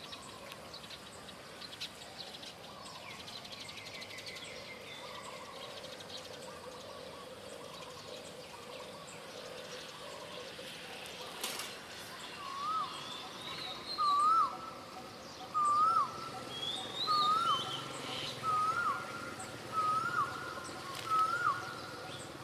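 Birds calling in trees. Faint chirps come first, then about halfway through one bird repeats a loud, hooked, whistled note seven times, roughly one and a half seconds apart.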